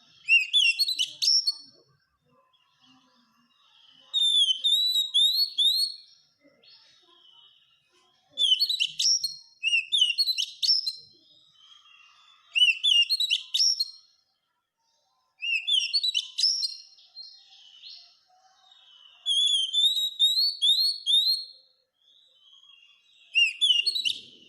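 Oriental magpie-robin (kacer) singing in repeated phrases of loud, rising whistled notes. There are about seven phrases, each a second or two long, with short pauses between them.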